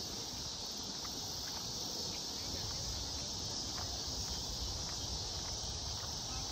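Steady evening chorus of crickets and other insects, an even high-pitched hiss, over a low rumble.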